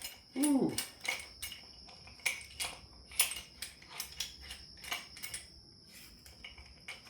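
Metal hand tools and parts clinking and tapping as they are handled, about a dozen short, irregular clicks that thin out near the end.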